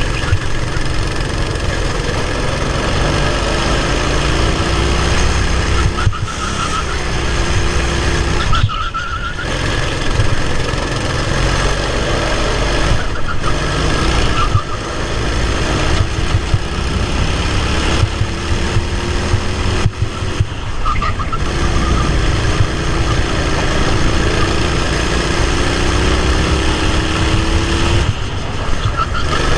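Racing kart engine heard from the kart's own onboard camera, its pitch rising in long sweeps as it accelerates and dropping briefly, about six times, as the throttle is lifted for corners.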